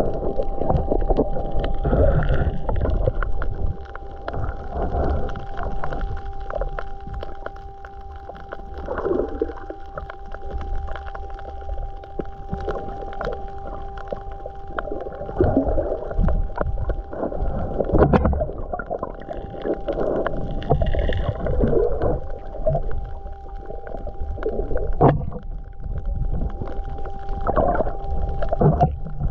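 Water sloshing and gurgling with irregular knocks and swells, over a steady tone.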